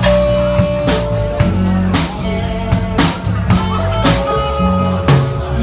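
Live band playing a slow pop song: drum kit hits about once a second over a bass line, with long held melody notes from guitar or keyboard.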